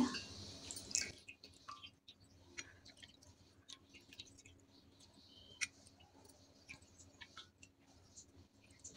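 Faint, scattered small clicks and taps of a steel ladle stirring warm milk in a steel pot while diluted vinegar is added to curdle it. One tap a little past the middle stands out above the rest.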